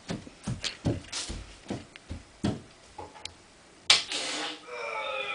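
Footsteps walking at a steady pace, about two a second, then a sharp bang about four seconds in, followed by a short hiss and a held, pitched sound starting near the end.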